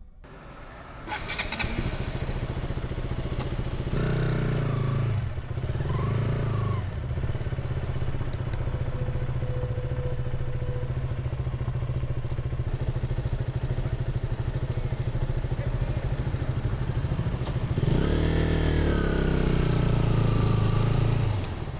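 Motorcycle engine starting up about a second in and then running steadily, its pitch rising and falling briefly twice.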